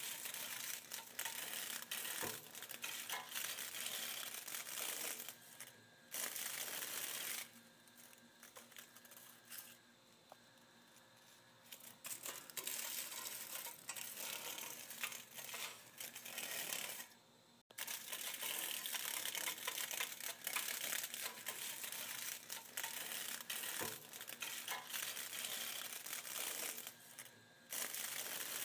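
Dragonfly wings rustling: a crackle of dense, irregular little clicks. It drops to a quieter stretch about seven seconds in, picks up again about five seconds later, and breaks off for an instant a little past halfway.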